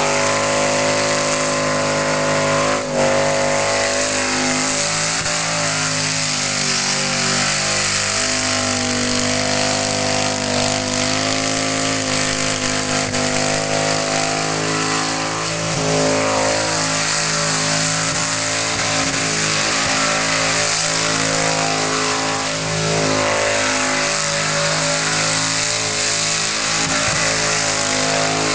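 1977 Ford XC Falcon ute doing a burnout: the engine is held at high, fairly steady revs with a short dip about three seconds in, and the rear tyres spin on the pad.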